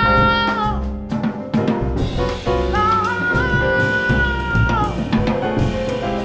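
Live jazz band with drum kit, upright bass and piano, with long held melody notes over the rhythm section.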